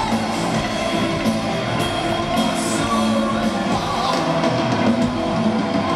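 Heavy metal band playing live: distorted electric guitars over a drum kit at full volume, heard from the audience.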